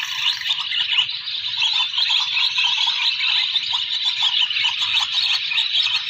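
Dense, unbroken chorus of swallows' chirps and twitters: the roosting chatter of a large flock, many birds calling over one another.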